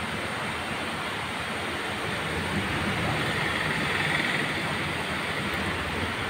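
Steady rain falling on a street and rooftops, a continuous hiss. It swells a little louder around the middle, when a car drives along the wet road.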